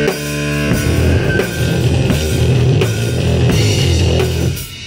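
Death-thrash metal band rehearsing: a drum kit with cymbal crashes and drum hits, played together with electric guitar, at full volume in a small room. The playing drops away near the end.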